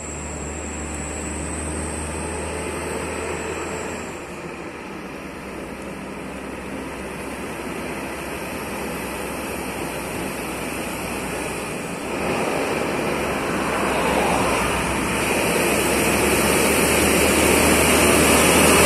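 Scania heavy truck hauling a crane on a low-bed trailer, its diesel engine running as it climbs toward the listener. The engine noise steps up about twelve seconds in and keeps growing louder as the truck draws near.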